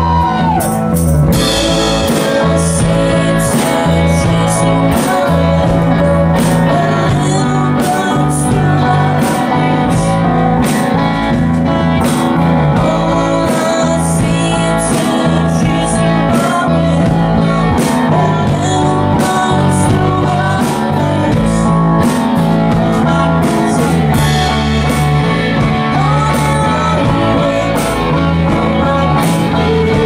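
A live rock band playing: electric guitar, electric bass, drum kit and keyboard, with a steady drum beat and sung vocals at times.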